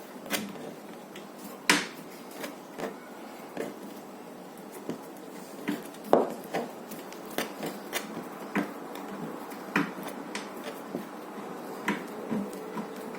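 Scattered light clicks and knocks of small metal parts and tools being handled while fitting a replacement high-voltage diode in a microwave oven, with the sharpest knocks about two seconds in and about six seconds in.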